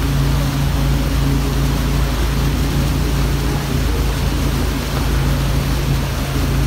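Boat engine running steadily at towing speed, a constant low hum, under the even rush of churning wake water and wind.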